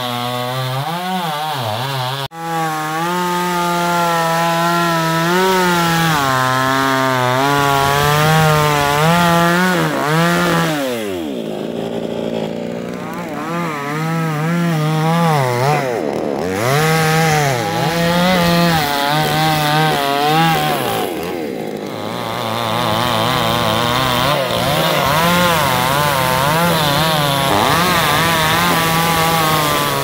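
Two-stroke chainsaw cross-cutting a thick mangium (acacia) log at high revs. The engine pitch wavers as the chain loads up in the cut, and it sinks sharply and recovers a few times.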